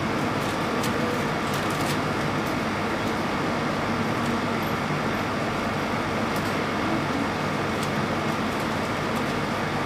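Steady background noise in a hall: an even hiss over a low electrical hum, like a fan or sound-system noise, with a few faint clicks.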